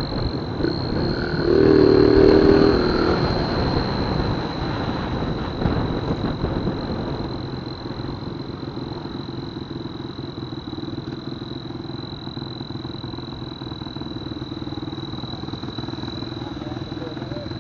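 Honda Verza 150 motorcycle engine fitted with an exhaust turbo whistle. It revs briefly about two seconds in, then settles back to a steady idle. A thin high whistle tone runs over the engine sound.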